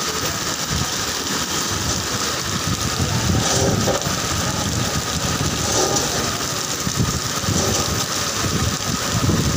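Heavy rain pouring down in a steady hiss, with an uneven low rumbling underneath.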